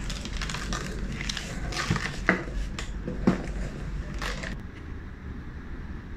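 Pink plastic packaging bag crinkling and cardboard rustling as a guided wave radar level transmitter is handled and lifted out of its box, with two sharper knocks about a second apart near the middle. The crinkling stops about three-quarters of the way through.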